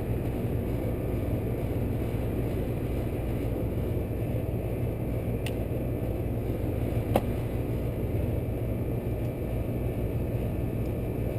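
Outdoor air-conditioning condensing unit running steadily: compressor and condenser fan humming, with the compressor drawing about 11 amps. A couple of light clicks in the middle.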